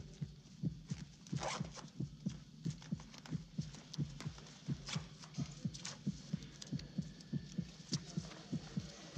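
Heartbeat sound effect: a steady, even run of low thumps that does not let up. A few short, sharp rustles and clicks sound over it.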